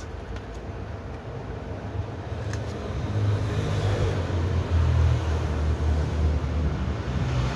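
Low motor-vehicle engine rumble, growing louder about three seconds in and staying loud.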